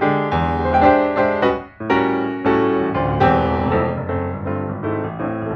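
Background piano music, with notes struck several times a second.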